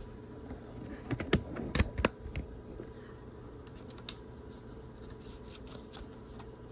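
Handling noise: a cluster of sharp clicks and knocks between about one and two and a half seconds in, then a few fainter ticks, over a low steady hum.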